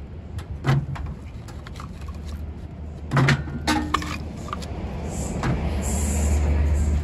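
Wooden pine logs being tossed into a stove's firebox, knocking against the metal and each other in several separate clunks, the loudest a little over three seconds in. A steady low rumble runs underneath and grows louder near the end.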